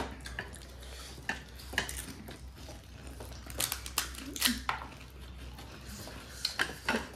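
Crisp pani puri shells being cracked open by thumb and dipped into ceramic bowls of spiced water: scattered short cracks and light clinks of china bowls and plates.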